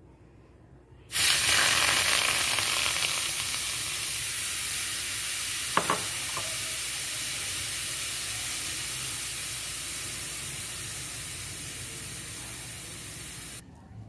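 Green herbal leaf extract poured into a hot metal pan, sizzling loudly from about a second in and slowly dying down as the bubbling settles; two light clicks near the middle, and the sizzle cuts off just before the end.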